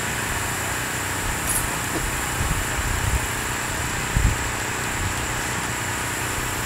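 Steady outdoor background noise: an even hiss over a low rumble, with a couple of brief low bumps about four seconds in.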